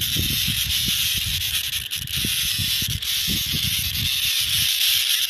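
A steady outdoor hiss with irregular low rumbles of wind buffeting the microphone.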